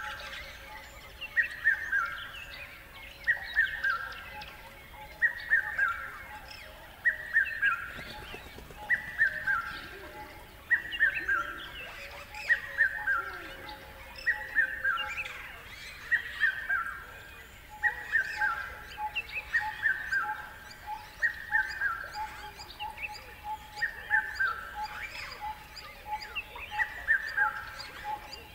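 Bird song: the same short phrase of falling notes, repeated about every two seconds, with fainter chirps of other birds behind it.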